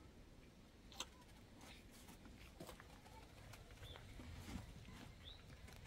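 Near silence, with a few faint scattered clicks and two short high chirps.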